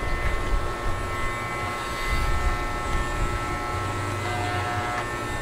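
Electric dog grooming clippers running steadily with a constant hum, worked through a dog's thick coat.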